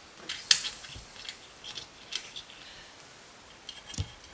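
Scattered light clicks and rustles of hands handling small metal hardware and wires at a ceiling fan's downrod coupler, with a sharper knock near the end as a pin is worked into the coupler.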